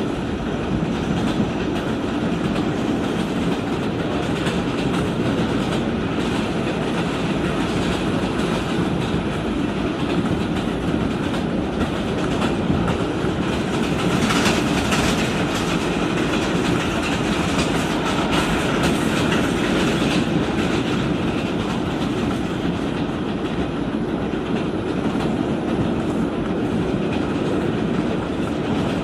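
Inside an R142 subway car running at speed with its HVAC off: a steady rumble of wheels on rail with clickety-clack over the rail joints. The clatter grows brighter and louder for several seconds around the middle, then settles back.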